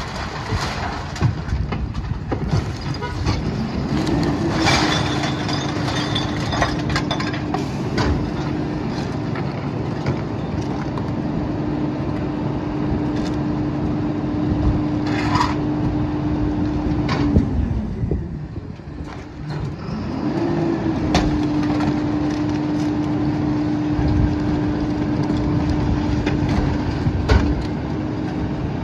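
Freightliner M2 garbage truck revving up to drive the NewWay Viper rear loader's hydraulic packer, its engine and pump holding a steady raised hum through a compaction cycle, dropping back briefly past the middle, then rising again for a second cycle. Plastic bins clatter against the hopper in the first few seconds.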